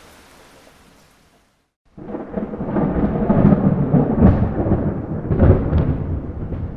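Steady rain fades out. After a brief silence, a loud rolling thunderclap breaks in suddenly about two seconds in and rumbles on with crackling peaks for several seconds.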